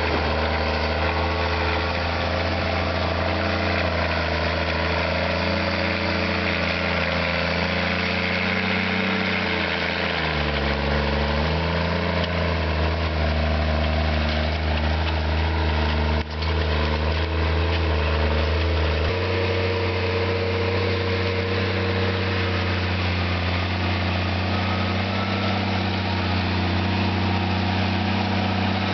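Case IH Magnum MX240 tractor's six-cylinder diesel running steadily under load as it pulls a disk ripper through corn stalks. The engine note sags briefly about ten seconds in, then comes back up.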